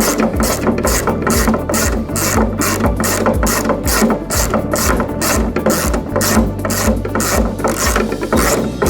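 Background music with a fast, even clicking beat and a repeating bass line.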